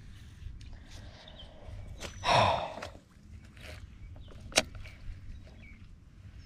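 Handling of a fishing rod and baitcasting reel: a loud rustling swish about two seconds in, then one sharp click a couple of seconds later, with faint bird chirps.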